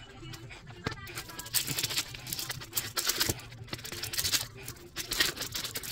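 Handling noises as hard plastic hair-styler attachments and their storage case are picked up and moved: light clicks and knocks, then repeated bursts of rustling from about a second and a half in.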